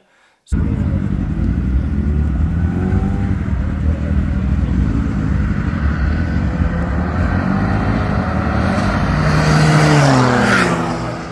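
Two diesel race cars, a big-turbo VW Polo 1.9 TDI and a BMW X3 3-litre diesel, running hard in a street race. Steady engine and road noise starts about half a second in, then a car passes close near the end with a rush of noise and an engine note that falls in pitch as it goes by.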